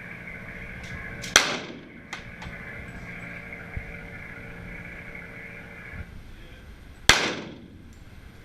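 Two shots from a Glock pistol, about six seconds apart, each a sharp crack followed by a short echoing decay.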